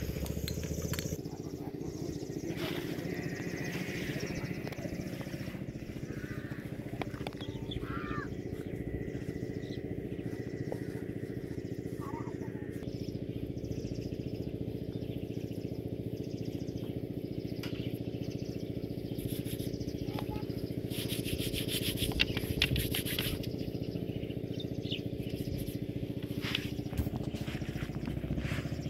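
A steady, low engine drone runs throughout, with a few faint bird chirps and a brief burst of rustling noise about two-thirds of the way through.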